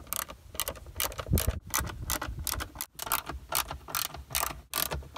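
Socket ratchet clicking in short, uneven runs of rapid clicks as 10 mm bolts are loosened from a jet ski's plastic cover.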